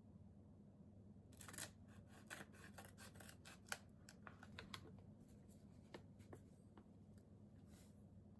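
Small close-up handling sounds: an irregular run of sharp clicks and scrapes for several seconds, one click louder than the rest near the middle.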